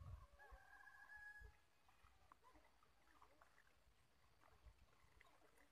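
Near silence with a faint, distant rooster crowing once in the first second and a half.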